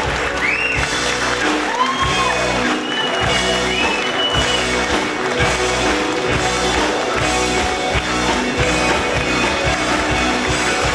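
Live rock band playing loudly, with electric guitar and a steady drum beat, recorded from among the audience.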